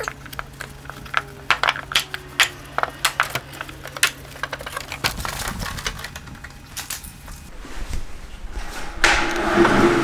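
Hands handling and wiping the plastic panels of a stand-type air conditioner: a run of light clicks and taps over a steady low hum that stops about halfway, then a rubbing hiss near the end.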